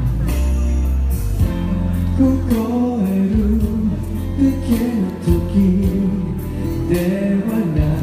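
A man singing a melody live into a microphone over backing music with a steady bass line, during a sound check.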